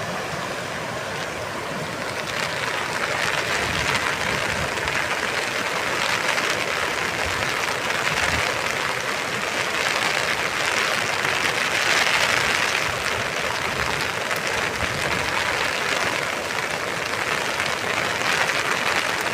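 Rushing floodwater: a steady, loud hiss of fast-moving water that swells a little about twelve seconds in.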